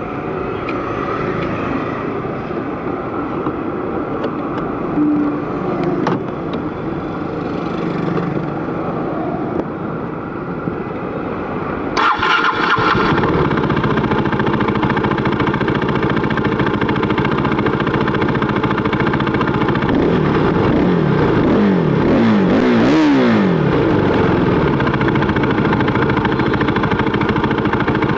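Background street noise, then about twelve seconds in a KTM RC390's single-cylinder engine starts through a replica SC Project exhaust and settles to a steady idle. Later come a few quick throttle blips, the pitch rising and falling.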